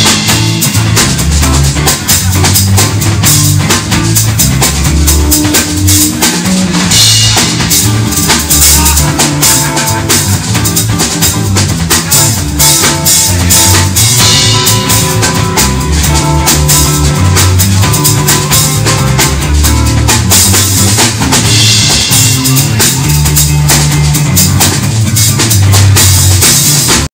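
A live band playing, with a drum kit's bass drum and snare hits driving over a moving bass line.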